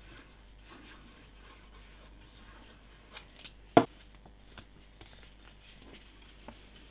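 Faint rustling and soft scraping of cardstock being handled on a tabletop while liquid glue is applied, with a few light ticks and one sharp knock about halfway through.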